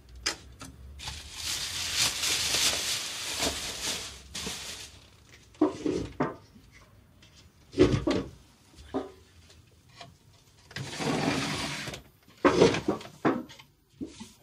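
A large plastic garbage bag rustling and crinkling as it is pulled off, then a metal pail knocking and clanking several times as it is handled and set in place. There is another short stretch of rustling about eleven seconds in.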